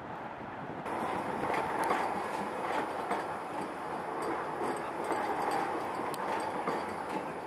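Tatra T4D tram running along the track, louder from about a second in: a steady whine with scattered clicks and clatter from the wheels on the rails.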